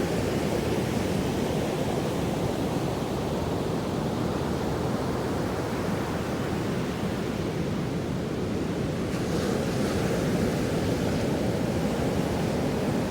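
Sea waves washing onto the shore in a steady roar, swelling a little louder about two-thirds of the way through.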